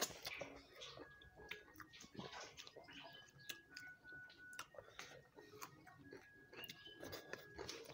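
Two people eating rice and chicken curry by hand: faint chewing and mouth sounds with many small scattered clicks, the sharpest right at the start.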